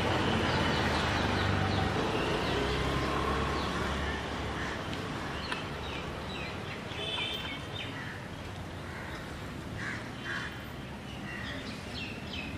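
Outdoor street ambience: a low traffic rumble that fades over the first few seconds, with scattered short bird calls above it.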